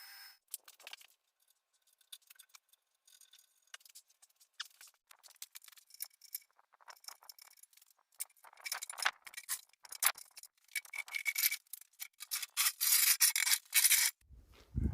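Irregular scraping and rubbing strokes, sparse at first, then denser and louder from about eight seconds in.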